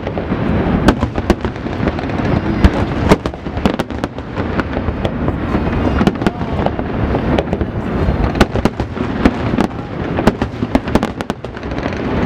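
Fireworks display: a dense, continuous barrage of sharp bangs and crackling over a steady low rumble.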